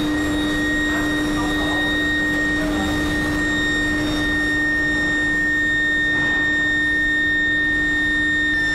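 Billet induction heating furnace running: a steady low hum and a steady high-pitched whine over a constant rushing machine noise.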